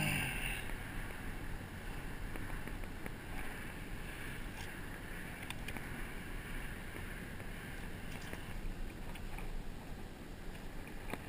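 Gentle sloshing and swishing of shallow water as a landed fish is held and moved in it by hand to revive it, over steady wind noise on the microphone. There is a brief louder swish at the very start and a few faint clicks later on.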